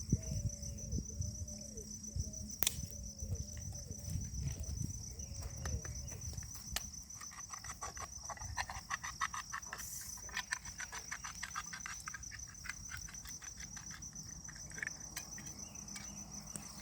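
Insects chirring steadily in a high, pulsing drone. A short falling call repeats about every half second in the first third. From about seven seconds in, a quick run of regular clicks or taps follows for roughly seven seconds.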